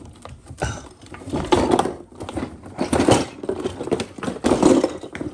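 Bouts of clattering and rustling as objects are pulled about and knocked together, with the loudest bursts about a second and a half in, three seconds in and near the end.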